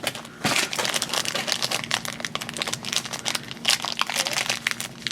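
Plastic blind-bag wrapper crinkling irregularly as it is handled and opened by hand.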